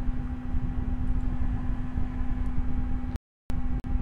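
Steady background hum with a low rumble. It cuts out to dead silence for a moment about three seconds in, and a short click follows.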